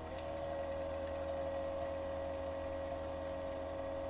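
A small motor running at a steady speed: a constant whining tone over a low hum, its pitch dipping slightly right at the start.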